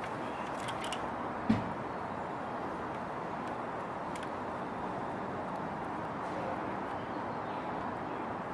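Steady background noise of a mechanical room, with a single knock about a second and a half in and a few faint clicks from work on the compressor.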